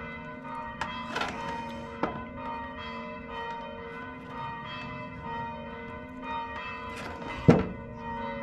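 Zinc roof flashing being handled and bent with seaming pliers: a few sharp metal clicks and knocks, then one much louder thump near the end. Steady bell-like ringing runs underneath.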